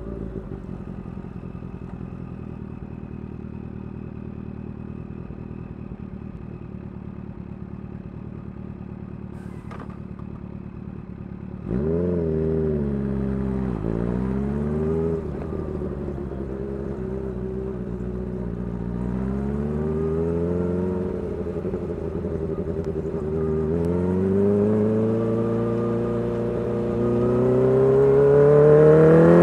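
Kawasaki Ninja H2's supercharged 998 cc inline-four, on a full titanium exhaust, running at a steady low pitch. About twelve seconds in the throttle opens: the revs jump louder and rise and fall several times, then climb steadily, loudest near the end.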